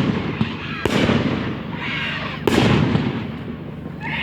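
Aerial fireworks going off: a sharp bang about a second in and another about two and a half seconds in, each trailing off into crackle and rumble.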